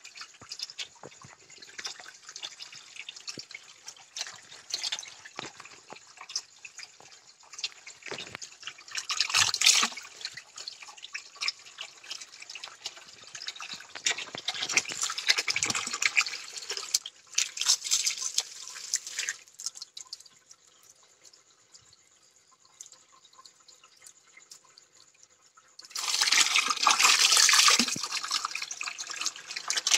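Water dripping in scattered irregular clicks over a faint hiss, with a few louder swells of rushing, splashing water.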